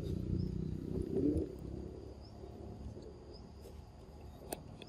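Low cooing calls in the first second and a half, over a faint steady high-pitched insect-like tone, with one sharp click near the end.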